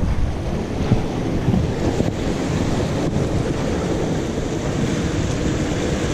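Surf washing against the rocks of a jetty, with wind buffeting the microphone in a steady rush.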